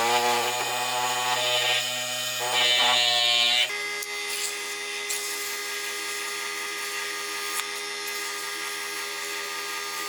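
Electric power tool, such as a drill or rotary tool, running steadily while polishing the toy's metal parts. Its motor hum changes abruptly about a third of the way in, then holds steady.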